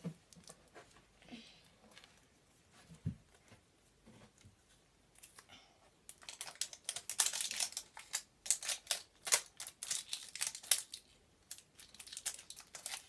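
Small plastic wrapper crinkling and tearing as it is worked open by hand. A few faint handling clicks come first, then a dense run of crackles through the second half.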